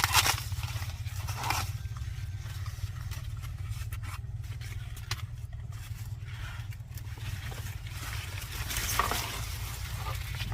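Dry corn plants rustling and scraping, with a few louder swishes, as ears are broken off the stalks, over a steady low rumble.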